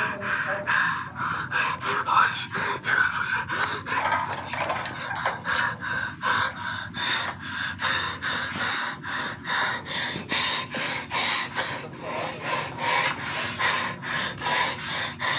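A young man panting in fright: quick, heavy breaths, about three a second, kept up without a break.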